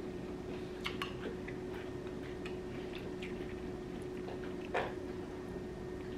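Close eating sounds: a metal spoon clicking and scraping against a ceramic bowl, with soft chewing and sipping of broth, over a steady low hum. The loudest click comes about three-quarters of the way through.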